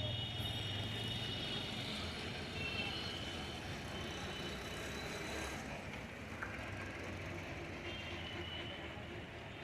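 Local train running along the track: a steady rumble with a faint high-pitched metallic whine that comes and goes.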